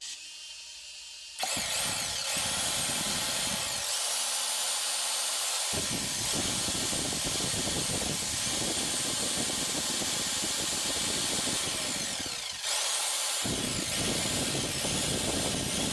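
Bosch GSH 500 electric demolition hammer (breaker) running continuously. It starts about a second and a half in and dips briefly near the end.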